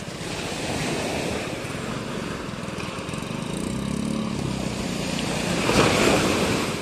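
Yamaha outboard motor running steadily on a small fibreglass fishing boat, over breaking surf. A wave crashes just before six seconds in and is the loudest moment.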